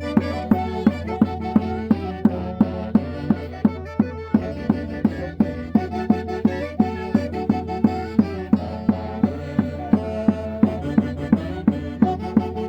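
Andean traditional band music in caña y quinto style: a melody over a steady drumbeat of about three strokes a second and a sustained low bass.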